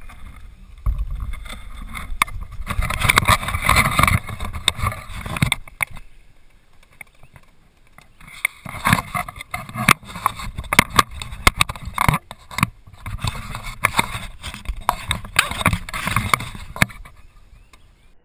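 Kayak handling noises: irregular knocks, rustles and water sloshing against the hull, coming in two busy stretches with a quieter pause between.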